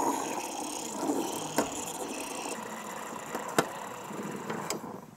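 Steam wand of a KitchenAid Artisan 5KES2102EER espresso machine hissing into milk in a stainless steel pitcher, frothing it for a cappuccino, with a few sharp clicks. The steam stops near the end.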